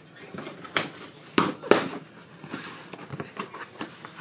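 Cardboard shipping box being opened by hand: rustling and handling of the box and its flaps, with three sharp cardboard cracks, a little under a second in, at about a second and a half, and just before two seconds.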